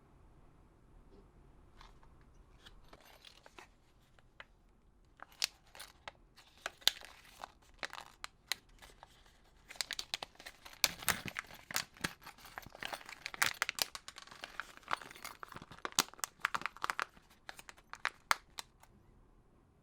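Crinkling and tearing of a thin material, with irregular sharp crackles that start sparse and grow dense in the second half, then stop shortly before the end.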